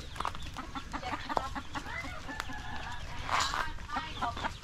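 Chickens clucking, many short calls overlapping one another.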